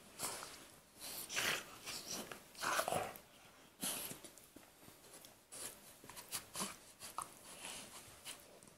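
A golden retriever and a Labrador puppy playfighting mouth to mouth: irregular snuffling, huffing breaths and mouthing and chewing sounds, in short bursts a few times a second.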